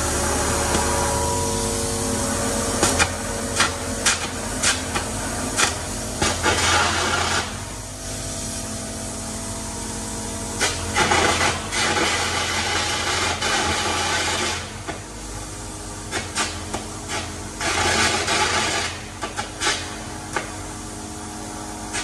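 Air carbon arc gouging on a steel baler cross member: loud crackling and hissing from the arc and compressed-air jet, in three runs of a few seconds each with sharp cracks. A machine hums steadily underneath.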